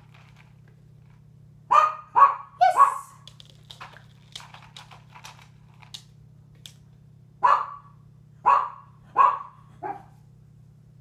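A small dog barking: three quick barks, then after a pause of a few seconds four more, the last one quieter.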